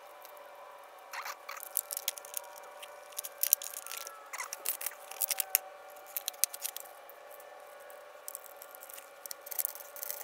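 Hands fitting small bolts, washers and locking nuts into a hard plastic bracket: a scatter of light clicks, taps and rattles as the nuts are started by hand and not yet tightened.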